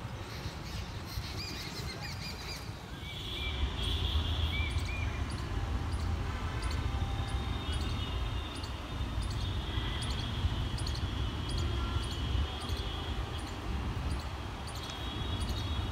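Birds chirping over a low outdoor background. About three and a half seconds in, a steady low rumble of a train in motion sets in, with a faint high tick repeating about twice a second and an occasional thin high tone.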